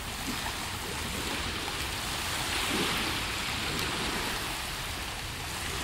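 Small waves washing on a pebbly beach, a steady rushing noise that swells a little about halfway through.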